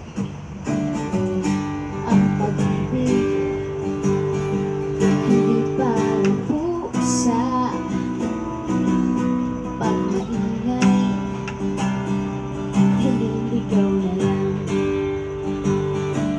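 Acoustic guitar being strummed, playing sustained chords that change every second or two.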